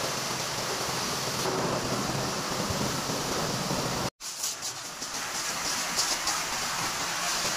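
Water spraying from a hose onto a car being washed, a steady hiss and splash. It cuts out for an instant about four seconds in and comes back with a brighter spatter as the spray hits the foamed bodywork.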